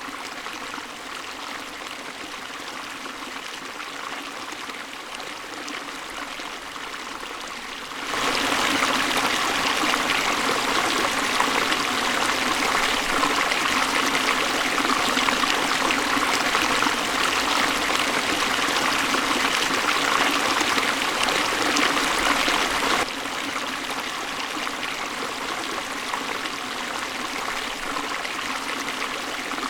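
Hill river flowing, a steady rushing of water. It turns abruptly louder about eight seconds in and drops back just as suddenly about three-quarters of the way through.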